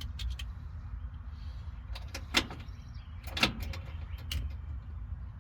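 Sharp, irregular mechanical clicks from a 1965 Ford F100's steering-column turn signal switch being worked back and forth: a few light ones at first, then two louder clicks a little over two and three seconds in. There is no steady flasher ticking, because the signals are still not working.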